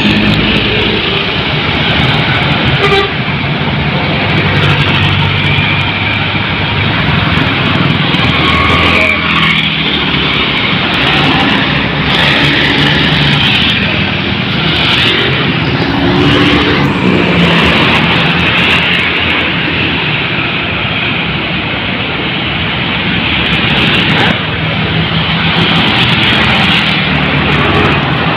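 Busy road traffic: buses, trucks and cars driving past with their engines running and tyre noise, rising and falling as vehicles go by.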